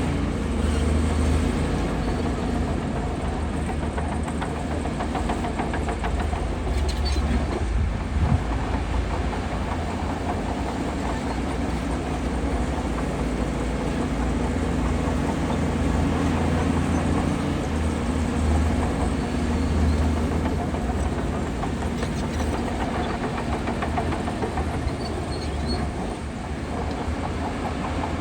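Bulldozer's heavy diesel engine running steadily under load, a continuous low drone whose level rises and falls a little.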